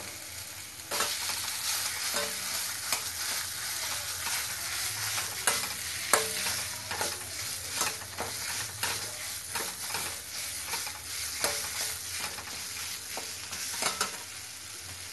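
Fish and mashed boiled potato mixture sizzling in oil in a metal kadai while a metal spatula stirs it. The spatula scrapes and knocks against the pan many times. The sizzling grows louder about a second in.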